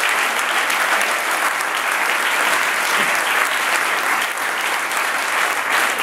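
Audience applauding steadily, many hands clapping at once, at the close of a live song.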